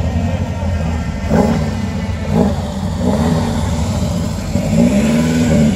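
Classic sports car engine accelerating, its pitch rising in several sweeps as it revs up.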